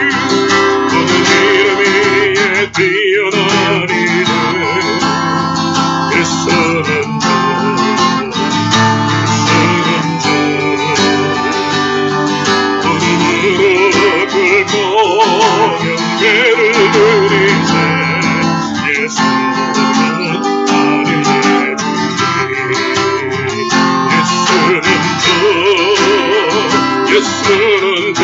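A Korean gospel song, acoustic guitar strummed under a singing voice.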